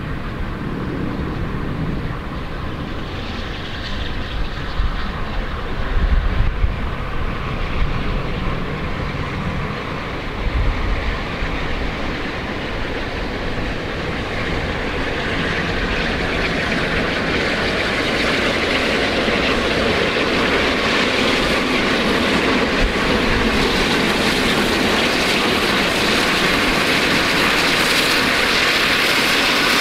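GWR Castle Class four-cylinder 4-6-0 steam locomotive approaching under steam with its train, its sound growing steadily louder as it nears. Gusts of wind rumble on the microphone in the first half.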